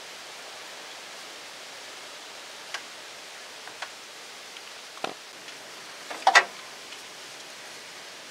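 Steady background hiss with a few scattered faint clicks and knocks, and a louder short clatter about six seconds in.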